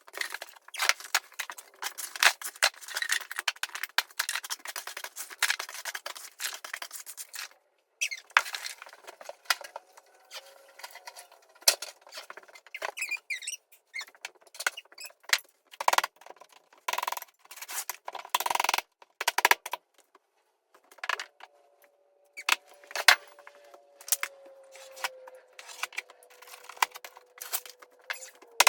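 Hand demolition work: a run of knocks, clatter and scraping, with a long squeak that starts about three-quarters of the way in and slowly falls in pitch.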